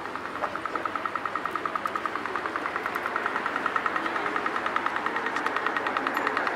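Pedestrian crossing signal ticking rapidly: a high, regular tick several times a second, slowly growing louder. A fast tick like this is the Dutch tikker's signal that it is safe to cross. Low traffic noise lies underneath.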